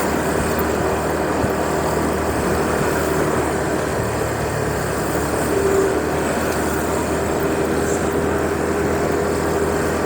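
Motorbike engine running at a steady cruising speed, mixed with wind and road noise.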